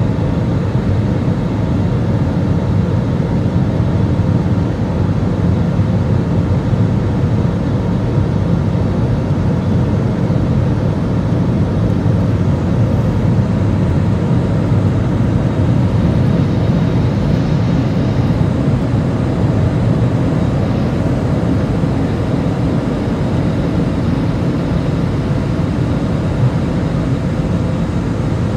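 Steady cabin noise of an Airbus A320-200 climbing out after takeoff, heard from a window seat beside the engine: an even, low rumble of engine and airflow.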